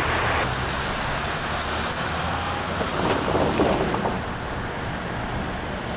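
Street traffic noise: a steady rush of passing cars on a city street, rising a little as a vehicle goes by about halfway through.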